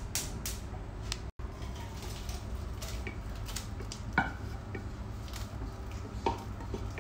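A metal spoon scraping and knocking against a pressure-cooker pot as cooked wheat is spooned out into a steel saucepan, with one sharp clank about four seconds in. A steady low hum runs underneath.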